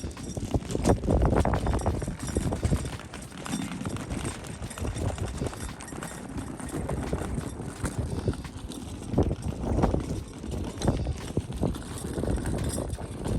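Footsteps crunching on gravel at a steady walking pace.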